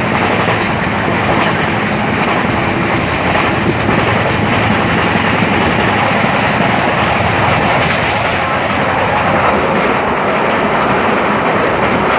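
Passenger train running at speed, heard from an open coach window: a steady, loud rumble of wheels on the rails mixed with the rush of air.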